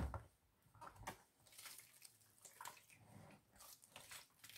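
Faint, irregular sounds of a plastic spoon stirring a Rappie Pie mixture of grated potato, chicken and broth in a large plastic bowl.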